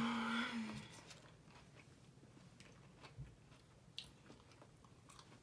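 Someone chewing McDonald's chicken nuggets, with soft scattered mouth clicks and crunches. A short steady hum sounds at the very start, the loudest moment.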